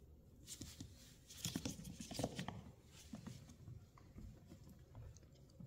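Faint patter and clicking of Bichon frise puppies' paws and claws moving about on a hardwood floor, busiest around two seconds in.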